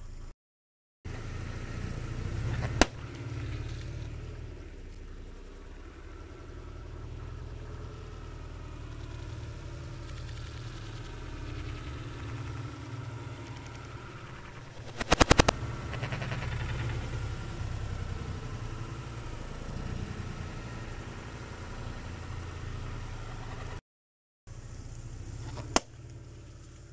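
A car engine runs low and steady as the tyres roll over objects and crush them. There is a sharp crack a few seconds in, a loud burst of rapid crunching and cracking about midway, and another sharp crack near the end. The sound cuts out briefly twice at edits.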